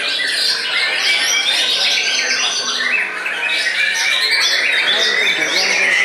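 Many caged songbirds singing at once, among them white-rumped shamas: a dense, unbroken chorus of overlapping whistles, trills and rising and falling notes.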